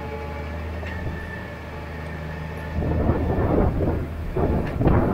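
Wind buffeting the microphone in loud irregular gusts from about three seconds in, over a steady low hum.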